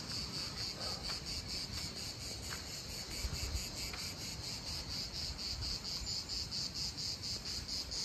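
Insects calling: a steady, high-pitched chirping in a fast, even pulse that goes on without a break.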